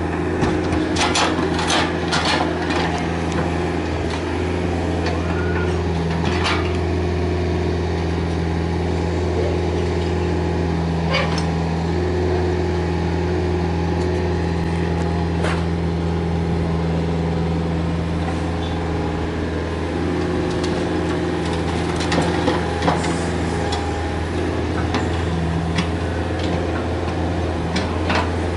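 Komatsu PC45MR mini excavator's diesel engine running steadily while it works its hydraulics, its note strengthening and easing as it swings and digs. Scattered knocks and scrapes as soil drops into the dump truck's steel bed early on and the bucket bites into the earth.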